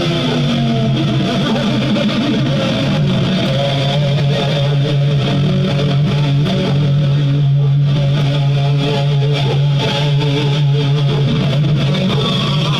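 Guitar music, likely electric guitar through effects, with a sustained low note under a changing line of higher notes.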